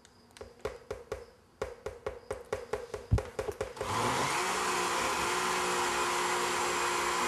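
Sea salt shaken from a canister into a blender jar, a quick run of taps, with one thump about three seconds in. About four seconds in a countertop blender starts and runs steadily, puréeing a liquid corn, avocado and almond-milk chowder.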